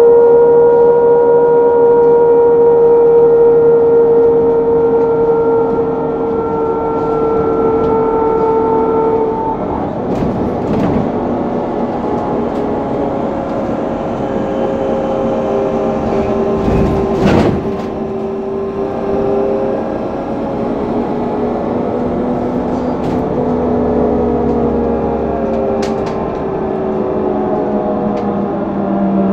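Electric drive of a 2013 HESS Swisstrolley 4 trolleybus heard on board: a steady, high whine that slowly drops in pitch over the first ten seconds, then weaker gliding tones under road noise, with a single knock about two-thirds of the way through.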